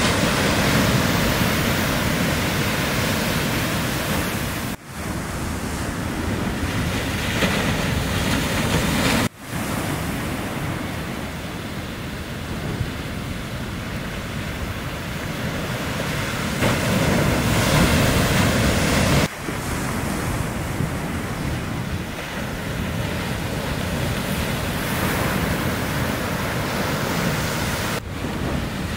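Small shorebreak waves breaking and surging in whitewater, a continuous wash of surf noise with a louder stretch shortly before the last third. The sound breaks off for an instant four times.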